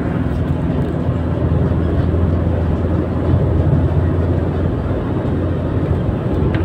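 Steady engine drone and tyre-on-road noise of a vehicle cruising along a highway, heard from inside it.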